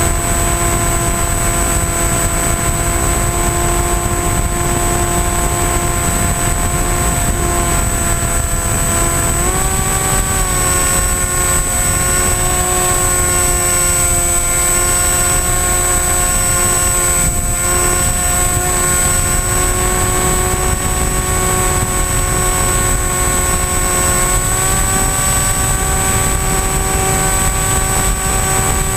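AXN Floater-Jet RC plane's electric motor and pusher propeller running steadily in flight, heard from a GoPro mounted on the plane, with wind rushing over the microphone. The motor's whine steps up in pitch twice, about ten seconds in and again about twenty-five seconds in, as the motor speeds up.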